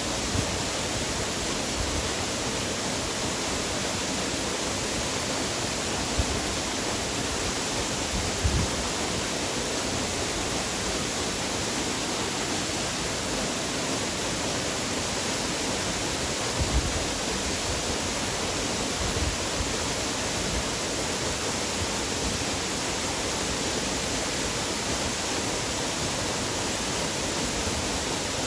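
Waterfall's rushing water: a steady, even roar, with a few brief low thumps.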